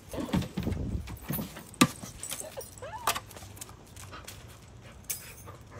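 A dog handling a set of keys: jangling and scuffling with clicks. The loudest is a sharp clack just under two seconds in, followed by a few short squeaks around the third second.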